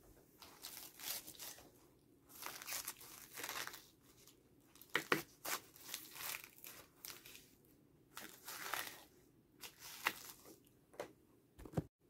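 Knife slicing through crisp iceberg lettuce leaves on a wooden cutting board: repeated bursts of crunching and leaf crinkling, with a few sharper clicks.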